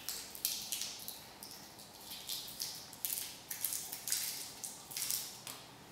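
Dry, papery garlic skin crackling and rustling as fingers pinch and peel a clove, in a run of short, irregular crackles.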